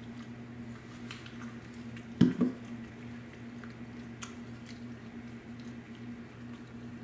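Wet squishing and faint squelching clicks of ear-cleaning solution being massaged into the base of a Jack Russell terrier's ear canal. There are two low thumps about two seconds in, and a steady low hum underneath.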